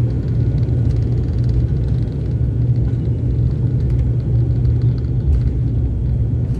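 Cabin noise of a twin turboprop airliner on its takeoff roll: a loud, steady engine drone with runway rumble underneath.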